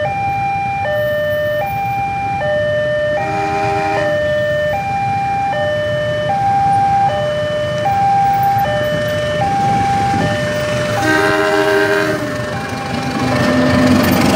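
A railway level-crossing warning alarm sounds two alternating electronic tones, high then low, each held just under a second. A diesel locomotive's horn blows twice, briefly about three seconds in and again about eleven seconds in. Near the end the rumble of the CC 206 locomotive rises as it reaches the crossing.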